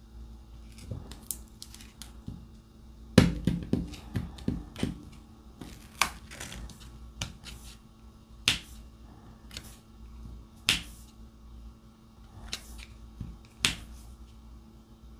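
Diamond-painting drill pen with a multi-placer tip clicking and tapping as it picks up drills from the tray and presses them onto the canvas. A quick cluster of rattling clicks about three seconds in, then single sharp clicks every couple of seconds.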